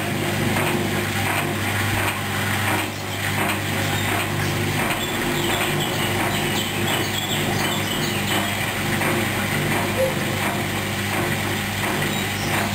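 Hoover washing machine running a duvet wash: a steady motor hum with irregular clicks and sloshing from the turning drum.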